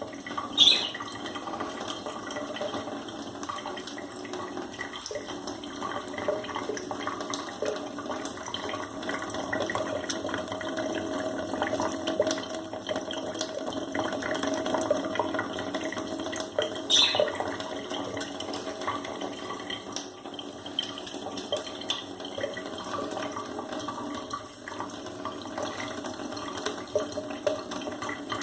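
Steady running water, with budgerigars giving a few short, high chirps: one about a second in and another about halfway through.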